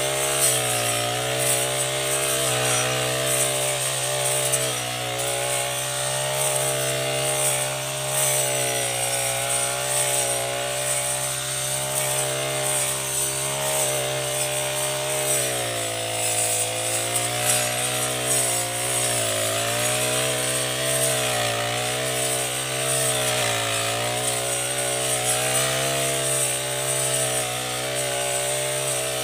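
Backpack four-stroke brush cutter running at high revs with a round wood-cutting saw blade fitted, cutting through thick grass. The engine note sags briefly a few times in the second half as the blade bites into the grass.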